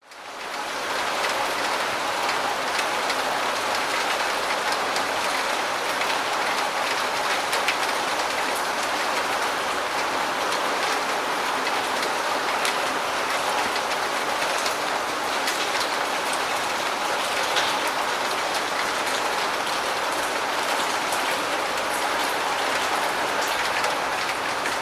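Rain falling steadily, an even hiss with scattered sharper drop ticks, fading in over the first second.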